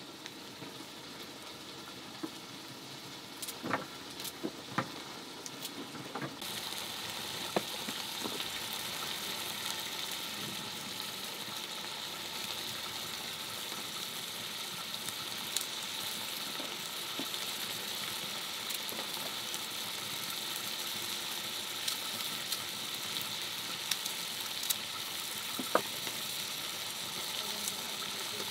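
A steady sizzling hiss from food cooking in a pot over a wood fire, growing louder about six seconds in, with occasional sharp clicks and snaps from the hand-cutting of carrots.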